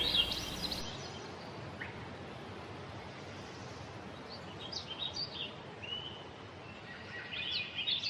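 Birds chirping faintly over a steady hiss of outdoor ambience, with clusters of short high chirps about four to five seconds in and again near the end.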